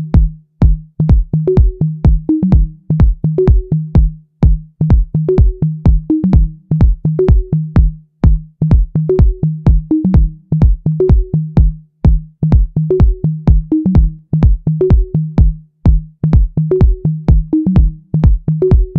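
Electronic music with a steady drum-machine beat, about two hits a second, over a repeating bass line.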